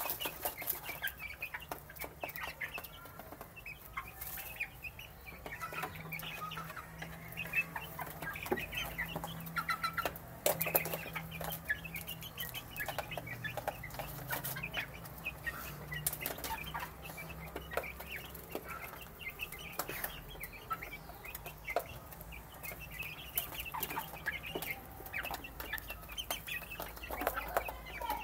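Chicks peeping continually as they feed: many short, high peeps overlapping, with scattered sharp taps and clicks.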